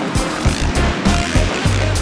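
Background music with a fast, steady drum beat and heavy bass.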